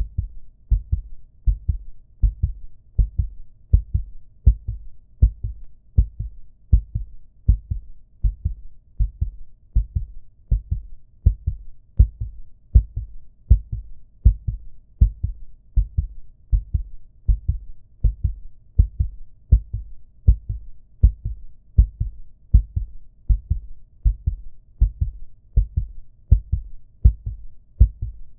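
Recorded human heartbeat: steady, low lub-dub double thumps repeating at about one beat a second.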